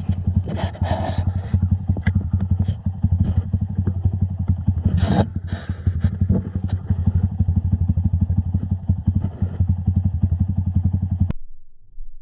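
Motorcycle engine running steadily with a rapid low pulsing and a few clattering noises, the loudest about five seconds in. It cuts off suddenly near the end.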